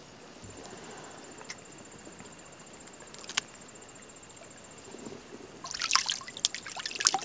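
A quiet stretch with a couple of small clicks, then from about six seconds in, irregular water splashing and trickling as a freshly skinned grouse is rinsed off in river water by hand.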